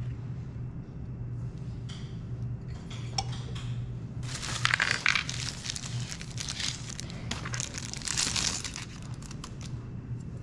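Plastic bubble-wrap sleeve crinkling and crackling as a serrated kitchen knife is pulled out of it, densest for a few seconds around the middle, over a steady low hum.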